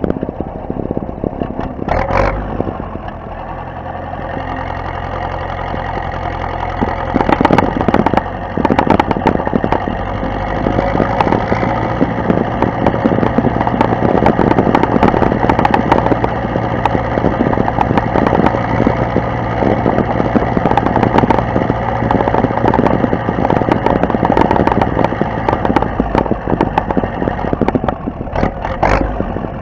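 Zetor 7745 tractor's four-cylinder diesel engine running steadily under load, getting louder about a quarter of the way in, while pulling a stone-laden trailer over a bumpy field. Frequent knocks and rattles from the trailer and hitch run through it.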